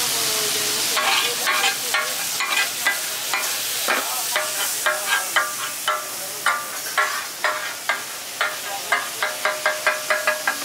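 Minced meat frying in oil on a large flat iron griddle (tawa), sizzling steadily, then metal spatulas striking and scraping the griddle in sharp, ringing clinks that come faster near the end.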